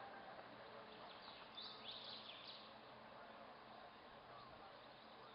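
Near silence: faint background noise, with a few faint high chirps about two seconds in.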